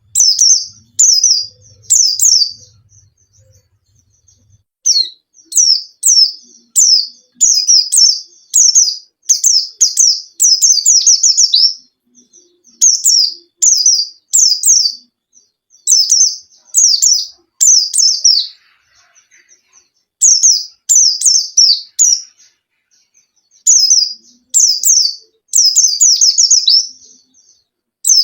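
White-eye (pleci, Zosterops) singing vigorously: rapid high twittering phrases, each a quick run of falling notes, repeated again and again with short pauses between.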